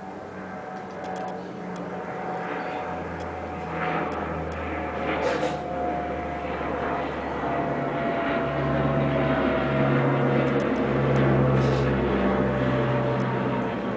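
Engine drone of an aircraft passing overhead, growing louder toward the end, with a tone that slowly falls in pitch.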